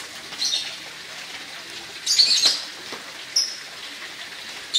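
Noodle broth with greens bubbling in a wok, a steady low bubbling hiss. Over it come several short high chirps, the loudest cluster about two seconds in.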